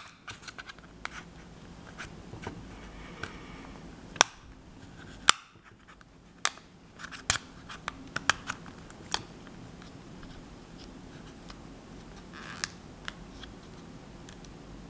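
Fingers working the case of a Palm M515 PDA to get the back section off: a string of sharp plastic clicks and light scratching. The loudest clicks come about four and five seconds in.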